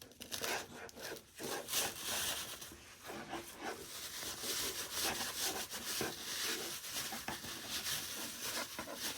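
A fabric belt sleeve being worked along a folded-back belt, giving a continuous run of uneven rubbing and sliding strokes.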